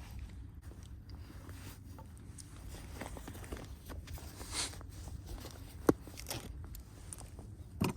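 Scuffing and shuffling on the ice with a sharp knock about six seconds in and a louder clatter at the very end, over a low steady rumble.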